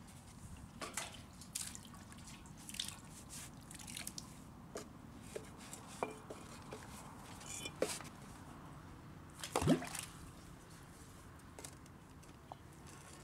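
Water dripping and plopping into a well's water surface: scattered small drips, with one louder plop that falls in pitch about ten seconds in.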